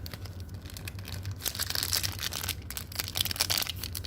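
Pokémon card booster pack wrapper being torn and crinkled by hand: a steady run of crackling and rustling, with one sharp loud crinkle at the very end.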